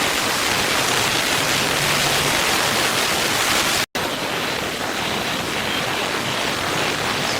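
Waterfall: a steady rush of falling water with no other sound. About four seconds in, the sound cuts out for a split second and resumes, slightly duller in the highest range.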